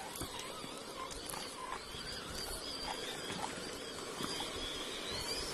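Loose stones and gravel clattering and crunching under an RC rock crawler's tyres: scattered small knocks over a steady noisy hiss.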